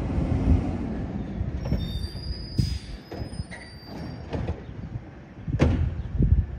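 Automated side-loader garbage truck at the curb: engine running, a thin high squeal about two to four seconds in, then heavy knocks near the end as its side arm grabs a cart.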